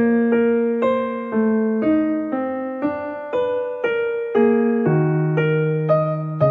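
Slow, calm solo piano music: single notes struck about twice a second, each ringing and fading, over sustained low bass notes.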